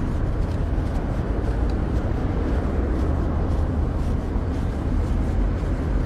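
Road traffic on a busy multi-lane road: a steady wash of passing cars with a strong low rumble throughout.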